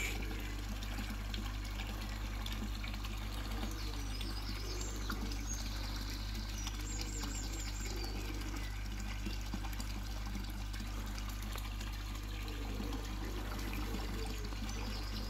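Koi pond water running and trickling steadily, with a low steady hum underneath.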